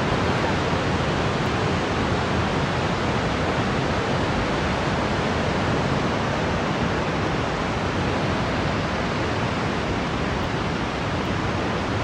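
Vøringsfossen waterfall: water falling down the cliff with a steady, even rushing noise.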